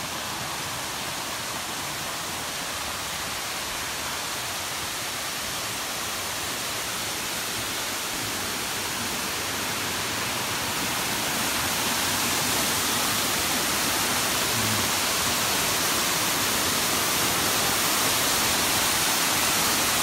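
Waterfall: a steady rushing of falling water, growing louder about halfway through as it is approached.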